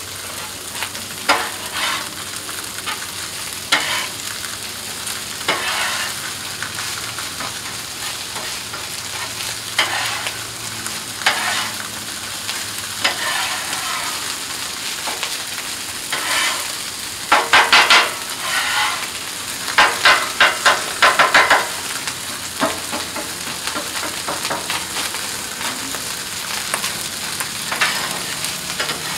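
Fried rice and scrambled egg sizzling on a hot Blackstone flat-top griddle while a metal spatula scrapes and taps against the steel plate, turning the rice. About two-thirds of the way through come two runs of quick, loud clacks as the spatula chops against the griddle.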